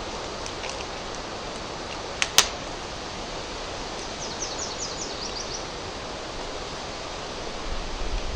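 A bird gives a quick series of about eight short, high, downward-slurred notes over a steady hiss, which is the trail camera's own outdoor recording. Two sharp clicks come a little after two seconds in.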